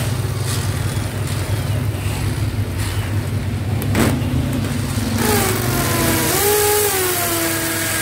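Bosch cordless hammer drill running in hammer mode while pressed down: a steady, rapid hammering rattle under the motor's hum. About five seconds in, a motor whine comes up, wavers in pitch, then holds steady.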